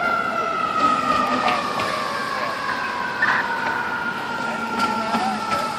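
Fire truck siren sounding one long tone whose pitch falls slowly and steadily.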